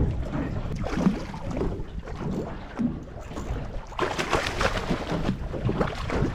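Wind buffeting the microphone over a steady low rumble in a small boat, with a louder rush of noise about four seconds in.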